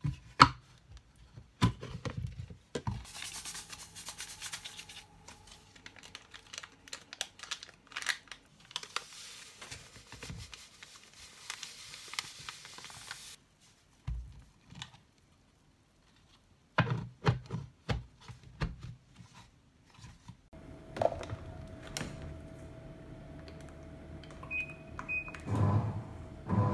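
Clicks and knocks of a plastic flip-lid jug being handled while a drink is mixed in it, with two stretches of hiss in the first half. Near the end, a steady hum with a few short electronic beeps from a washing machine's control panel.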